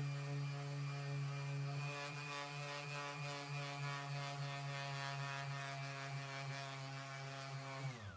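Handheld electric sanding or polishing power tool motor running at a steady speed, then switched off near the end and quickly winding down to a stop.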